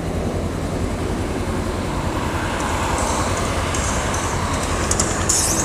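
Kawasaki Ninja 300 parallel-twin engine running with a dense, pulsing low rumble and a rush of noise. From about three seconds in, short bursts of high hiss come and go.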